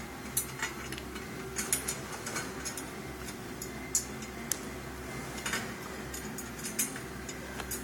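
Light metallic clicks and clinks, scattered and irregular, from an Allen key working bolts into the metal cart frame by hand.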